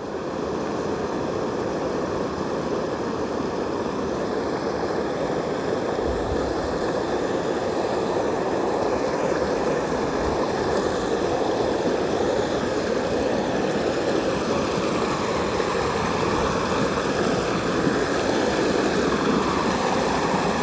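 Fast current rushing over and tumbling off a submerged concrete low-water crossing: a steady roar of water that grows slightly louder as the flow breaks into white cascades.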